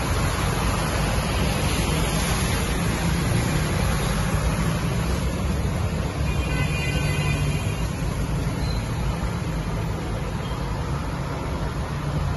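Road traffic wading through a flooded street: engines running with a steady low rumble, and tyres splashing through standing water. A faint high tone sounds for about a second midway.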